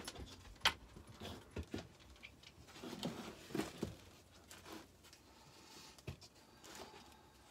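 Rummaging through a box of jewelry bits and trinkets: quiet, scattered small clicks, rattles and knocks, with a sharper click under a second in.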